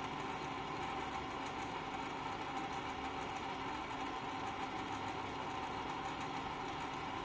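Danfoss electric valve actuator's motor and reduction gearbox running with a steady hum as it drives the valve stem toward the position set by a 12 mA control signal. This is the actuator stroking normally, testing good after repair.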